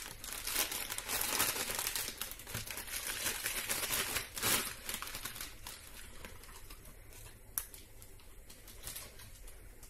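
Thin plastic noodle bag crinkling and rustling as a bundle of dry glass noodles is pulled out of it, busiest in the first half, then dying down, with one sharp tick a little past halfway through.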